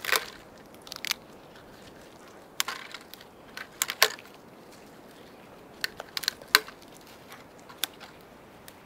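Dry dead twigs snapping as they are broken off a fallen branch by hand: a series of sharp snaps and crackles in small clusters, with short pauses between.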